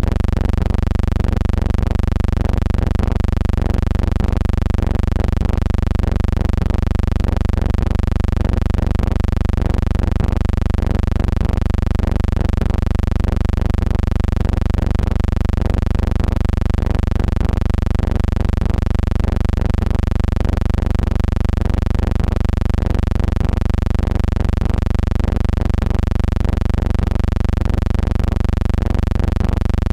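Steady low hum made of several constant tones, with a slight regular pulsing in loudness and no other events.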